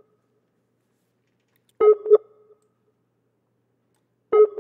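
Skype outgoing call ringing tone, a short double-pulsed ring heard twice, about two and a half seconds apart: once near two seconds in and again near the end. The call goes unanswered.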